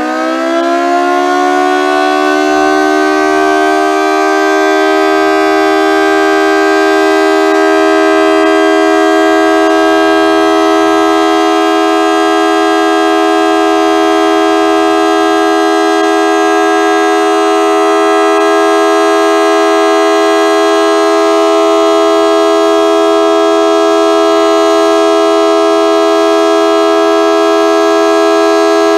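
Model 2T dual-tone outdoor warning siren finishing its wind-up in the first second or so, then holding a loud, steady chord of two tones. It sounds low-pitched, which the recordist takes as the siren not sounding too good.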